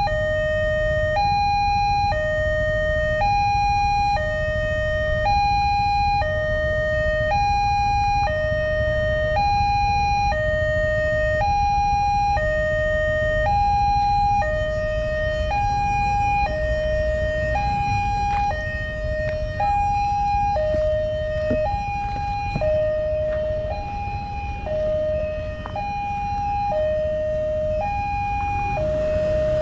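Railway level-crossing warning siren, an electronic two-tone alarm switching between a lower and a higher tone about once a second and sounding steadily. It signals that the crossing is closed for an approaching train.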